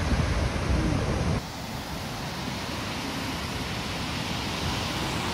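Surf breaking on a beach, a full steady rushing noise that cuts off abruptly about a second and a half in. A quieter, steady rushing background takes its place.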